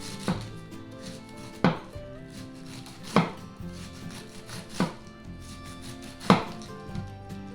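Cabbage being struck in slow, even blows, five in all, about one every second and a half, over soft background music.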